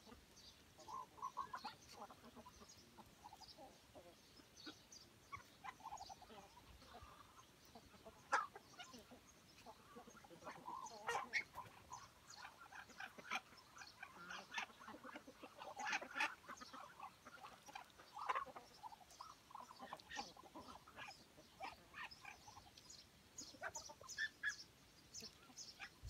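A flock of chickens and Muscovy ducks, quiet overall, giving scattered soft clucks and short calls mixed with brief high chirps.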